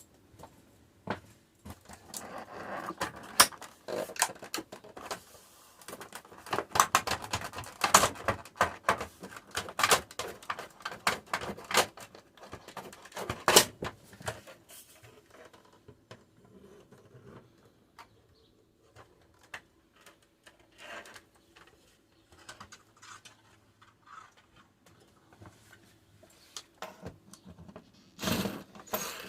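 Irregular clicking, knocking and rattling of hand work taking apart the front of an RV refrigerator. It is busiest in the first half, sparser later, with a louder knock near the end.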